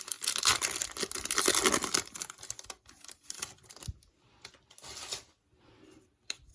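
Wrapper of a 2020 Bowman baseball card pack being torn open and crinkled, a dense crackle for the first two and a half seconds, then a few lighter rustles and clicks as the cards are handled.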